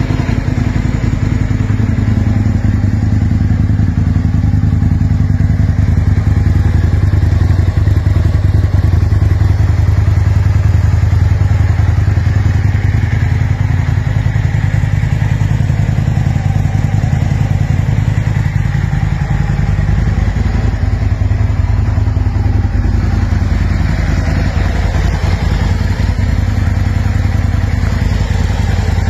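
Aprilia RSV 1000's 998 cc 60° V-twin idling steadily through an Akrapovič SP Series exhaust.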